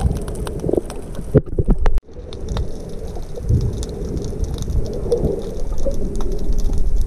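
Muffled underwater sound picked up by a camera's microphone below the surface: a low rumble of moving water with scattered clicks and pops. It drops out abruptly about two seconds in, then fades back up.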